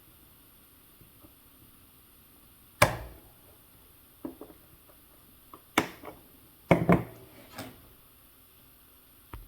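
Irregular sharp knocks and clicks of small hard parts and tools handled on a workbench during repair of an RC crawler's track links, the loudest about three seconds in and a quick pair about seven seconds in.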